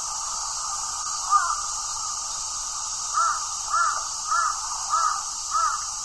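A crow cawing: a single caw about a second in, then a run of five evenly spaced caws in the second half, over a steady high hiss.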